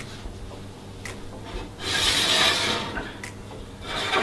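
Ceramic baking dish scraping across the oven's wire rack as it is pulled out. There is one rasping scrape about two seconds in that lasts about a second, and another begins near the end.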